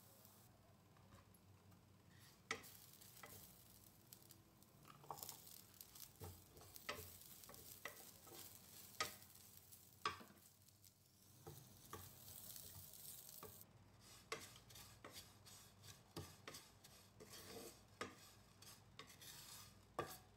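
Wooden spatula stirring and scraping grated coconut in a frying pan, with irregular taps and scrapes against the pan over a faint sizzle as the coconut dry-roasts toward brown.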